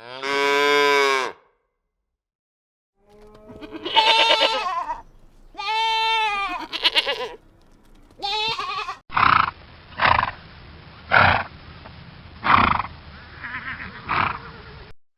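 Farm animals calling, several different animals in turn: a long call at the start, a few more drawn-out calls, then five short, duller calls about a second or so apart near the end.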